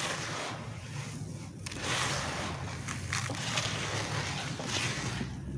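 Hands stirring and sifting dry, dusty crumbled clay grit in a basin: a gritty rushing hiss that swells and fades about four times.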